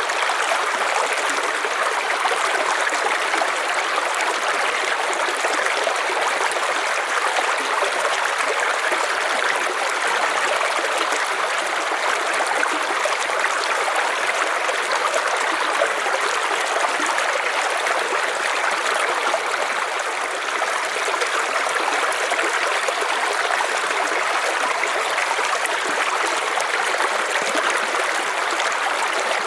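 River water running steadily, a constant rushing flow with no breaks.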